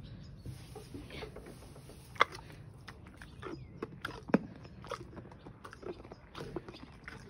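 Horse chewing a treat taken from a hand, with scattered crunching clicks and two sharper cracks about two and four seconds in.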